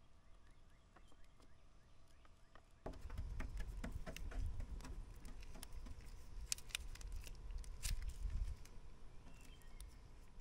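Faint scraping of a wooden stick stirring resin in a plastic dish, then, from about three seconds in, a paintbrush dabbing fiberglass resin into cloth on the hood: soft, irregular taps and rustles over a low rumble.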